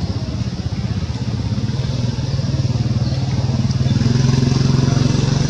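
An engine running with a steady low hum, growing louder over the second half.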